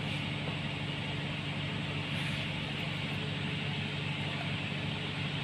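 Engine running steadily with an even, unchanging hum.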